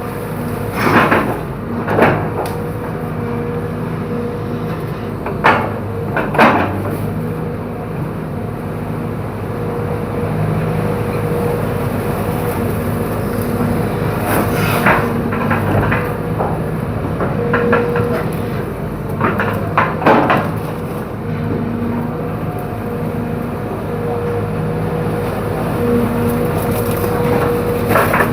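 Hydraulic excavator's diesel engine running steadily under load, with sharp cracks and knocks every few seconds as bamboo is snapped and crushed by the machine.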